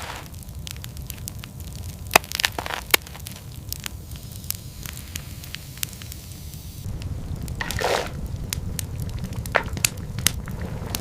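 Wood fire crackling: sharp, irregular pops over a steady low rumble, with a couple of brief swishes.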